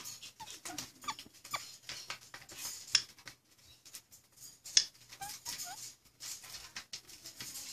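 Lutino ringneck parakeet making a few soft, short whiny squeaks while being petted, among faint clicks.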